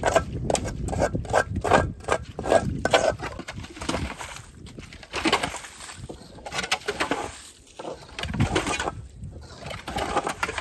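Shovel strokes through wet mud and water while a silted spring pool is dug out, with the splash and slosh of water being scooped out. There is a run of quick strokes in the first three seconds, then slower, scattered sloshes.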